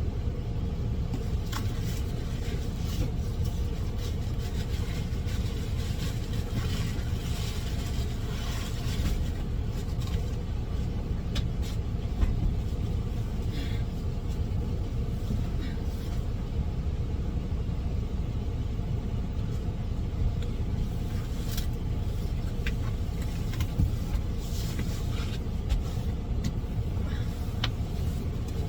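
Steady low rumble of an idling truck engine, with scattered rustles and scrapes of a cardboard box and plastic wrapping being cut open and handled.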